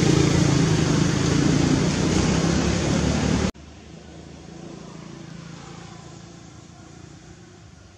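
Loud rushing outdoor background noise that cuts off suddenly about three and a half seconds in, leaving a much quieter steady outdoor background.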